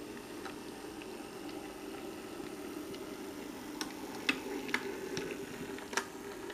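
Halling motor bogie of an H0m model tram locomotive running along the track: a steady low motor hum with the wheels clicking on the rails. The clicks grow louder and more frequent from about four seconds in, as the loco passes close.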